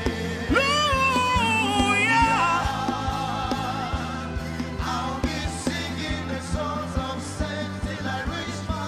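Live gospel worship band playing, with steady bass and keyboard chords under regular drum strokes, and a singer's long held notes over it in the first couple of seconds.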